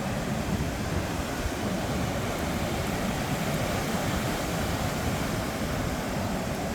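Steady wind noise on the microphone mixed with the wash of ocean surf, an even rumbling hiss with no distinct events.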